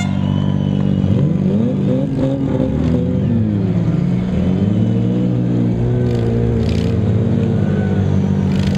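Several demolition-derby cars' six-cylinder engines running together and revving, their pitch rising and falling again and again as the drivers accelerate and back off.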